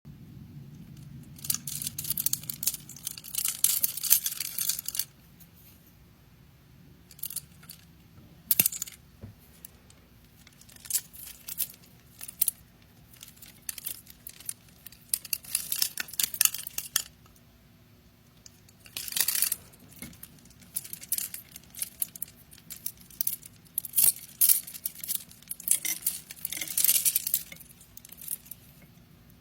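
Handmade UV resin jewellery being handled, giving small clicks and clinks mixed with crinkling rustles in irregular bursts with short pauses between them.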